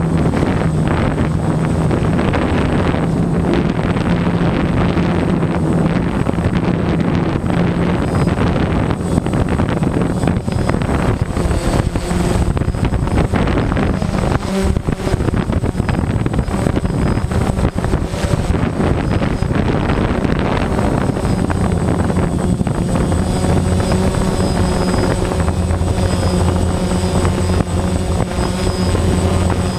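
Strong, gusting wind blowing loudly into the microphone, with a steady low hum underneath that grows stronger about two-thirds of the way through.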